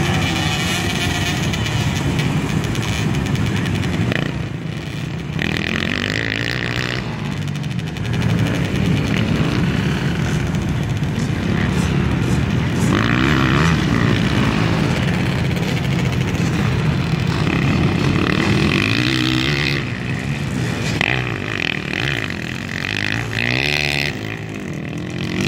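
Several small two-stroke dirt bike engines idling and revving, their pitch rising and falling over and over, with louder high revs a few times.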